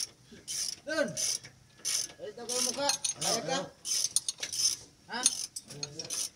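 Mechanical work sounds from metal parts and hand tools: several short squeaks that rise and fall in pitch, with clicks and scrapes between them.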